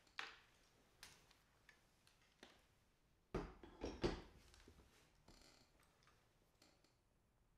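Faint handling noises: scattered small clicks, with a brief cluster of louder knocks about three and a half to four seconds in.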